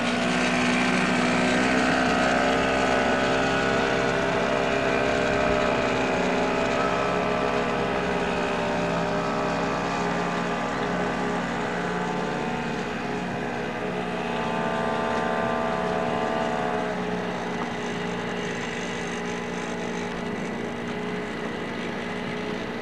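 An engine running steadily, its pitch drifting slightly up and down.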